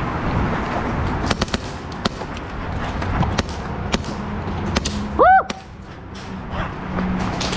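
Scattered single airsoft gun shots and BB hits, sharp cracks every second or so. About five seconds in, a brief, loud squeal rises and falls in pitch.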